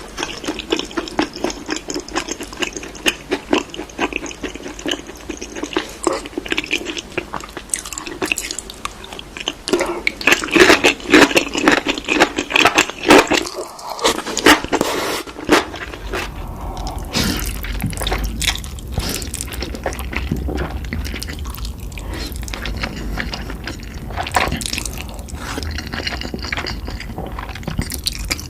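Close-miked eating sounds of spicy Korean food: wet, clicky chewing and mouth smacking. There is a brief pause about fourteen seconds in, after which a low hum sits under the chewing.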